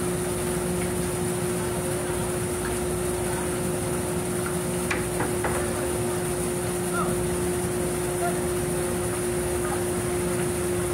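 Steady machinery drone with a constant hum, and a couple of faint clicks about five seconds in.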